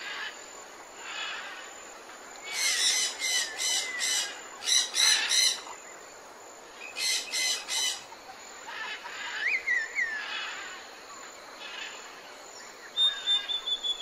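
Wild birds singing and calling: two runs of quick repeated notes, about four or five a second, a short rising-and-falling whistle, and a high, steady whistled note near the end, over a faint steady background hiss.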